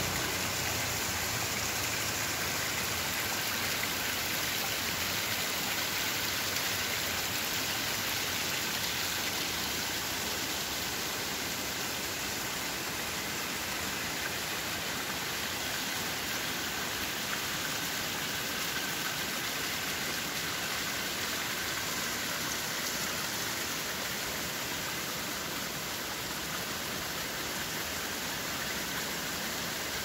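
Water from a small waterfall running and splashing down a rock face, a steady rushing hiss that holds evenly throughout.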